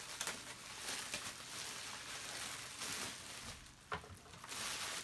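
Plastic packaging rustling and crinkling as it is handled, with a few short knocks, the sharpest about four seconds in.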